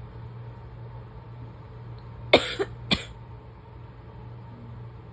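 Person's barking asthma cough: a quick run of three coughs a little over two seconds in.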